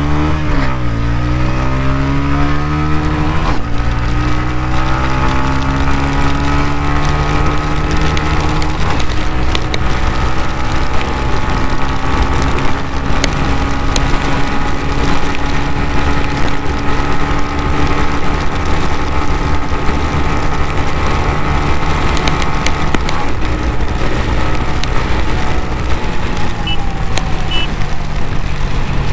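TVS Ronin 225's single-cylinder engine at full throttle on a top-speed run. Its pitch climbs steeply to a gearshift about three and a half seconds in, then rises slowly in top gear and levels off at speed. The engine note falls over the last few seconds as the bike slows.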